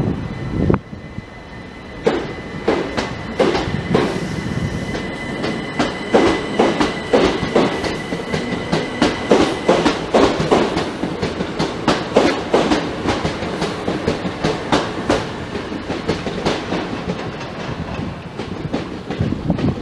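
Passenger multiple-unit train running along the platform, its wheels clicking over rail joints in a rapid rhythm of several clicks a second over a steady rumble. A thin, steady high whine runs under it through the first half.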